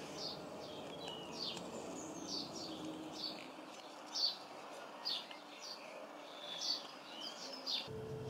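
Small birds chirping: a run of short, high, quickly falling chirps, one or two a second, over steady outdoor background noise. Near the end the ambience cuts and a low steady hum begins.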